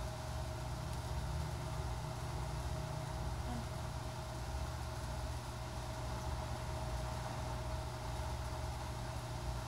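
Steady low hum with a thin, constant higher tone: background room noise, with no engine running.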